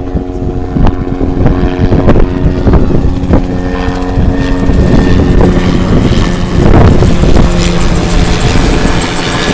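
A Bell 206B JetRanger III, a single-turbine helicopter, flying low overhead, its engine and rotor sound growing louder as it comes closer. A steady whine early on gives way to fuller, louder rotor noise with repeated thuds.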